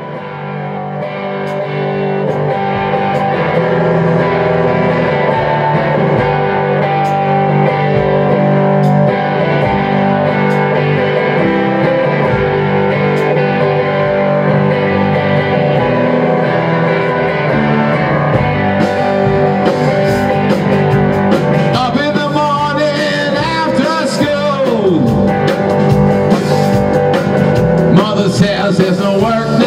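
Live rock band playing an instrumental passage: electric guitar, bass guitar and a Tama drum kit. The music swells up over the first few seconds, and the cymbals grow busier from about two-thirds of the way in.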